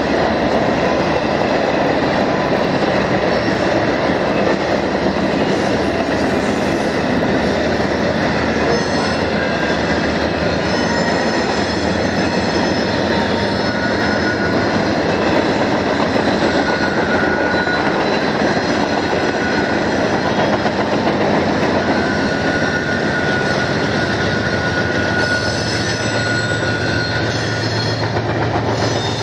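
BNSF freight train with diesel locomotives passing on curved track: a steady rumble of engines and rolling cars. From about a third of the way in, the wheels squeal in thin high tones. A deeper locomotive engine tone grows near the end.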